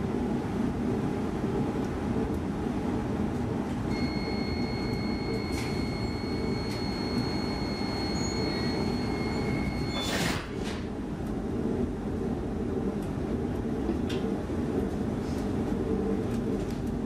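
Inside an X10 electric commuter train standing at the platform: a steady low hum from the train runs throughout. About four seconds in, a steady high warning tone begins and holds for about six seconds, then cuts off with a sharp thump as the sliding doors shut.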